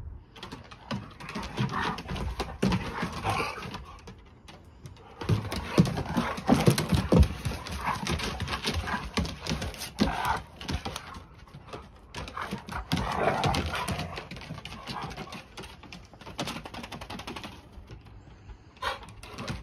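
Two dogs play-fighting on a wooden deck: dog play vocalisations over the clicking and scrabbling of claws and thumps of paws on the boards, loudest about six to seven seconds in.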